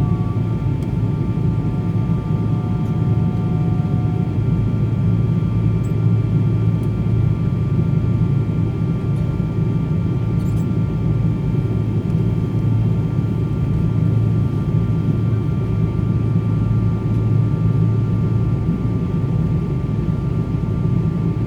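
Cabin noise inside a Boeing 777-200ER airliner: a steady low rumble of the running engines, with faint steady whining tones above it.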